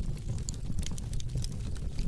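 Fire crackling: many small, sharp pops and snaps at irregular moments over a steady low rumble.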